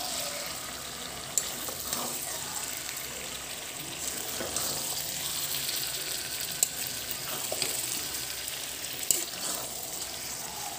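Aloo dum (small potatoes in thick spiced gravy) sizzling steadily in a metal pan while a metal spatula stirs it, with a few sharp clicks of the spatula against the pan.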